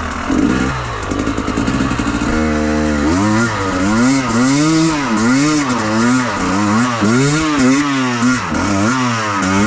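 Enduro motorcycle engine running low and rough, then from about two seconds in revving up and down over and over, roughly once a second.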